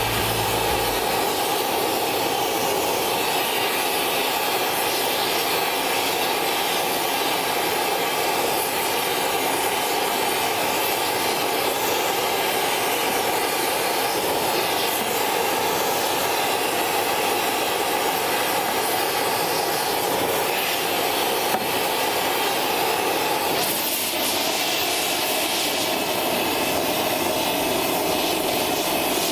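Oxy-fuel gas torch burning with a steady hissing rush, its flame heating the steel steering arm of a Ford drop-axle spindle so the arm can be bent. The tone of the flame shifts slightly about three-quarters of the way through.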